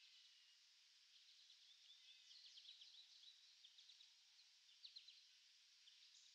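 Near silence: faint outdoor ambience with a steady high hiss and faint, high-pitched chirps, a busy run of them about two seconds in and a few sharper ones near five seconds.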